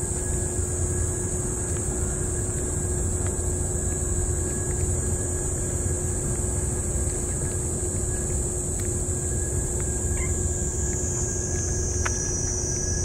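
A steady low rumble with a constant hum and a high, even buzz that drops in pitch near the end, over which come faint clicks of a cat licking and chewing wet food from a metal bowl.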